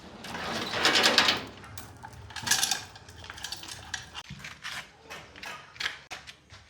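Metal tools and engine parts clinking and scraping as they are handled, with a longer scrape about a second in and another shortly after, then a run of short knocks and clicks.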